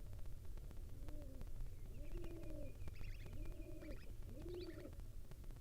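A dove cooing, a series of low arched coos about one a second, with a small bird chirping high above them in the middle of the run, over a steady low hum.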